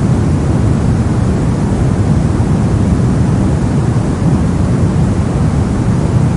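Brown noise: a steady, even rumbling hiss with most of its energy in the low end, constant in level.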